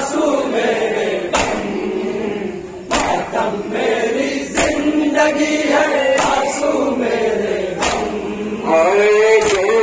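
Men chanting a noha together while beating their chests in unison (matam), the hand-on-chest slaps landing about every second and a half in time with the chant.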